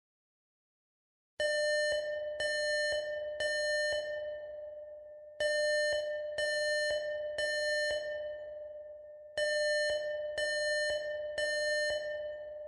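Bell-like chime on one repeated pitch, struck several times in quick succession, each strike ringing on; the group of strikes begins again every four seconds, starting about a second and a half in.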